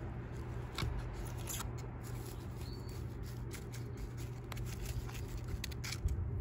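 Fingers pressing perlite-rich potting soil around a cedar seedling in a small plastic pot: scattered small crunching clicks and scratches.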